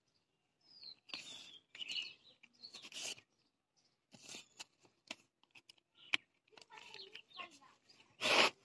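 Short rustling and scraping from hands fitting the blue plastic top cover and felt strip back onto a small 12 V motorcycle battery over its closed cell caps and pressing it down, in a string of brief bursts with the loudest scrape near the end.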